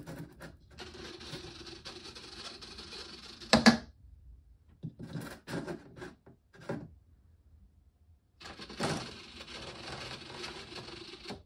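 A small RC servo whirs as it swings the model's landing gear doors open through a triangular linkage, ending in a sharp clack about three and a half seconds in as the doors reach fully open, where magnets hold them. A few light clicks follow. Near the end the servo whirs again, drawing the doors closed off the magnets.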